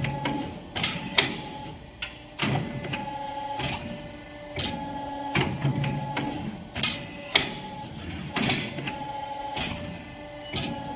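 CNC tube bending machine running its automatic cycle: servo motors whine in short runs that start and stop, punctuated by frequent sharp mechanical clacks.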